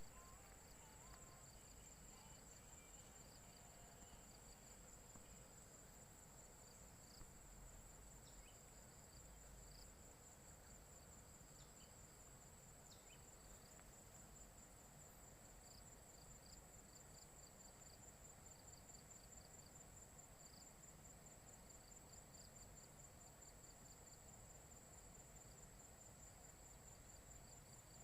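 Insects trilling steadily, faint: one continuous high trill, with a softer pulsing chirp beneath it.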